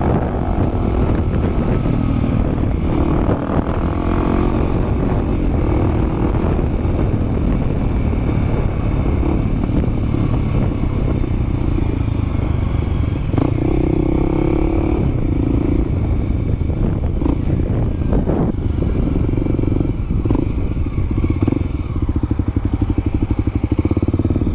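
Motorcycle engine running at low speed with wind on the microphone, rising briefly a few times as the throttle is opened, then settling to an even idle pulse near the end.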